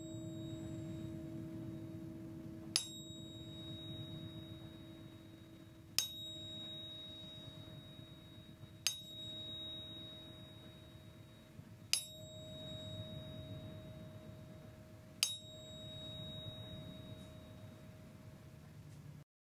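A metal sound-healing instrument is struck five times, about every three seconds. Each strike gives a bright, high ring that fades in about a second, over a steady sustained hum. The sound cuts off suddenly just before the end.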